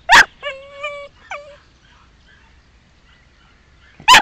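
Sealyham terrier puppy barking once, then a drawn-out steady whine and a short falling whimper, then quiet until another bark near the end. The puppy is worked up by the fox scent and rabbit skin in the cage in front of it.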